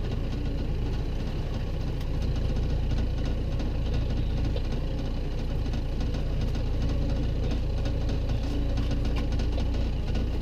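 Boat motor running at a steady low speed, a constant low rumble with a faint hum.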